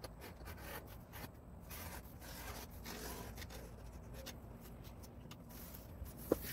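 Leather hide rubbing and scraping against itself and the tabletop as it is handled and a wooden strap cutter is worked along its edge, with a sharp tap near the end.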